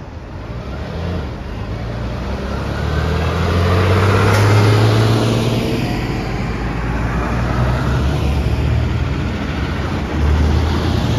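Tractors driving past one after another, their diesel engines running with a low drone and tyres hissing on the wet road. It swells to its loudest about four to five seconds in as one passes close, and swells again briefly near the end as another goes by.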